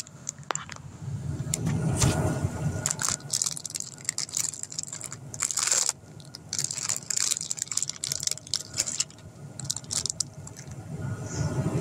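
Plastic toy blind-bag packet crinkling and crackling in irregular bursts as it is handled and pulled open.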